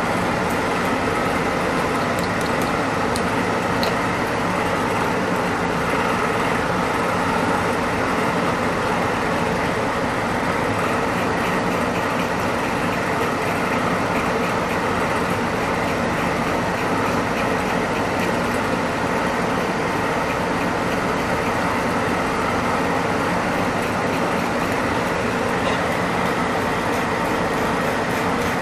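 Steady machine hum running throughout with several constant tones, at a level as loud as the talking, like a motor-driven blower or fan running in the grooming room.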